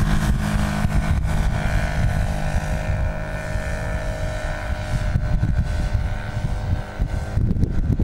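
Quarter-scale Tiger Moth model biplane's OS 200 four-stroke engine running at high power as the plane climbs out after takeoff, its note wavering slightly in pitch and fading near the end. Wind rumbles on the microphone underneath.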